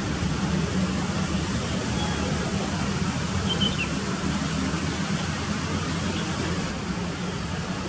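Steady outdoor background noise with a low rumble, and a couple of brief faint high chirps a few seconds in.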